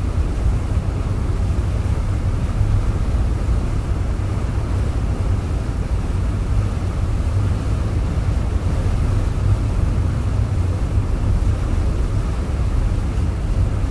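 Steady low rumble with a fainter hiss above it, unbroken throughout; no gull calls or other distinct sounds stand out.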